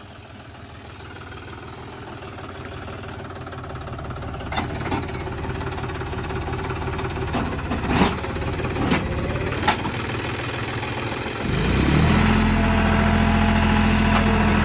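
John Deere 5105 tractor's three-cylinder diesel engine running in four-wheel drive while hauling a loaded trolley over bricks, growing steadily louder, with a few sharp knocks midway. About eleven seconds in it rises suddenly to a harder, louder note under load and holds there.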